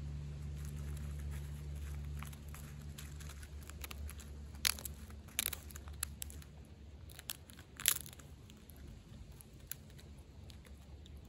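Striped skunk eating nuts from a plate, crunching them in a string of short, sharp crunches, the loudest about halfway through. A steady low hum fades out in the first few seconds.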